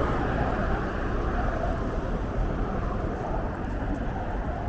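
Steady city traffic noise with a low engine hum underneath.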